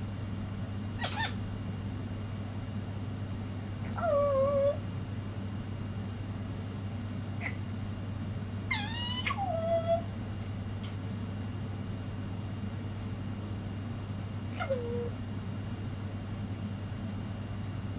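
African grey parrot giving about five short whistled calls, most sliding down in pitch, the longest around four and nine seconds in. A steady low hum runs underneath.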